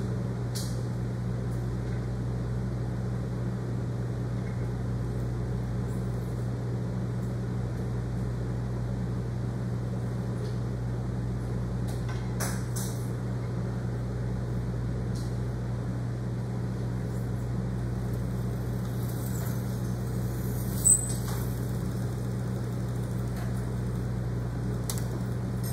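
Steady low hum throughout, with a few faint metallic clicks as the feed mechanism of a Foley Belsaw saw filer is adjusted by hand, and one short sharp click about 21 seconds in.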